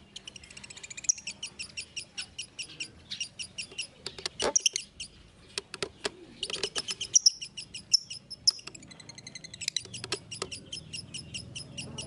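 Fischer's lovebird chattering in long runs of rapid, high chirps, many a second, broken by short pauses, with a few sharper clicks about four and a half seconds in.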